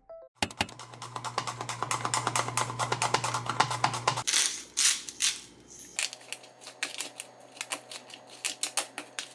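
A cucumber being sliced on a plastic mandoline slicer: a quick run of rapid clicking strokes across the blade for about four seconds, then sparser clicks and taps as the slices are handled in a plastic container.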